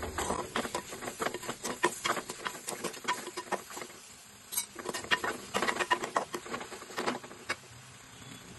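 Wooden spatula stirring chopped ridge gourd in an earthenware clay pot, with irregular scrapes and knocks against the pot. It goes in two bouts with a short pause about four seconds in, and quietens near the end.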